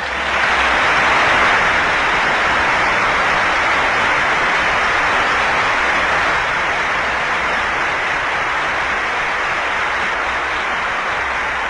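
An audience applauding: a long, steady round of applause from a large crowd, louder than the speech around it and easing off slightly toward the end.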